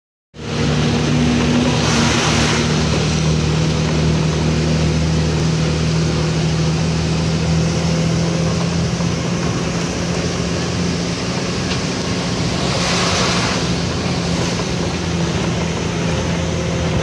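Inside a moving vehicle in heavy rain: the engine drones steadily under a constant hiss of rain and wet road. A louder rushing swell comes about two seconds in and again about thirteen seconds in.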